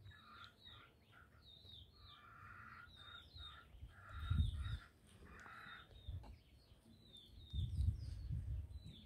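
Birds calling: a quick run of short, high chirps that dip in pitch, with rasping calls mixed in. A low thump about four seconds in.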